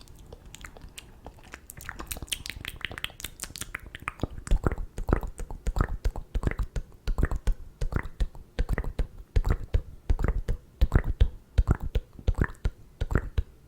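ASMR mouth sounds: wet tongue clicks and lip smacks in a rapid string, faint for the first few seconds, then louder at about three to four a second.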